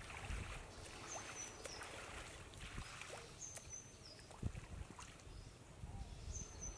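Pond water sloshing and splashing as a man wades chest-deep and gropes underwater with his hands, with irregular soft thuds of water against his body.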